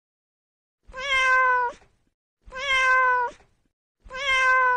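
Domestic cat meowing three times: the same drawn-out meow repeated about every one and a half seconds.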